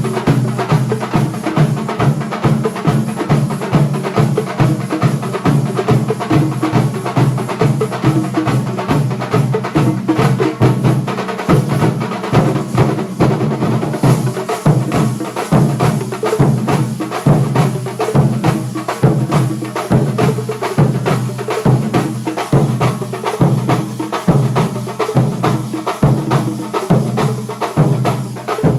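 Kerala thambolam percussion troupe playing drums in a fast, dense, steady rhythm, with a continuous bright metallic wash over the low drum strokes.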